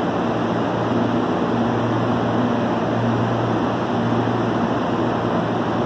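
Steady hum and rumble of CPTM electric commuter trains at a station, with a constant low drone under an even wash of noise.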